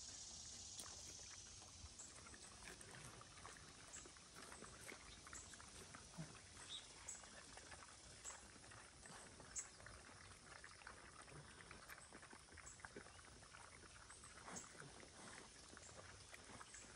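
Faint sounds of KuneKune pigs feeding: scattered small crunches and clicks of chewing and rooting through leafy greens and dirt. A faint high chirp repeats every second or so behind them.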